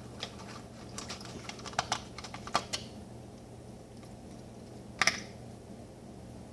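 A utensil clicking and tapping against a bowl as borax solution and glue are stirred together into slime: a run of light, irregular clicks in the first three seconds, then one louder knock about five seconds in.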